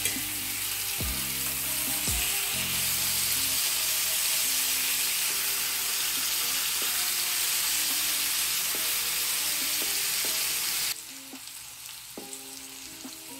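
Beef short ribs sizzling as they sear in hot oil in a cast-iron skillet, with a couple of knocks against the pan in the first two seconds as they are turned over. About eleven seconds in the sizzle drops suddenly to a quieter level.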